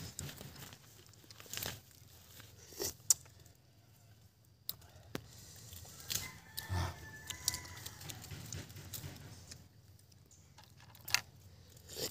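Cockle shells being prised open by hand: small, sharp clicks and cracks of shell, scattered irregularly, with one louder click about three seconds in.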